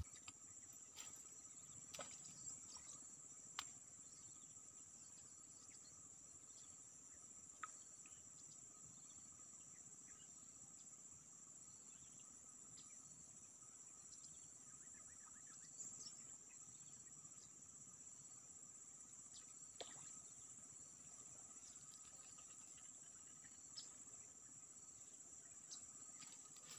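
Near silence with a faint, steady, high-pitched insect chorus and a few soft scattered clicks.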